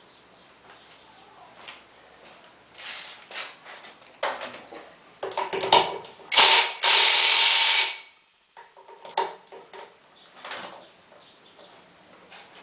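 Scattered clanks and knocks of parts and tools being handled during washing-machine repair work, with a loud, steady hissing burst lasting about a second and a half near the middle.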